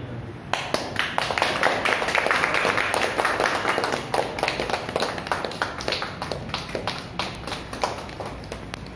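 A small group of people clapping by hand, starting about half a second in, thickest over the first few seconds and thinning out toward the end.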